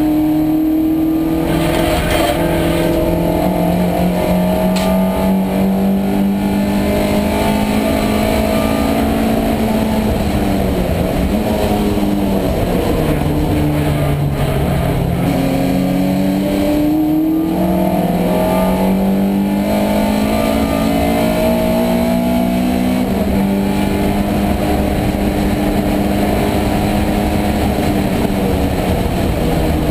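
A small saloon race car's engine heard from inside its caged cockpit, running hard at high revs. The note drops for braking about a third of the way through, then climbs again in steps as it accelerates through the gears.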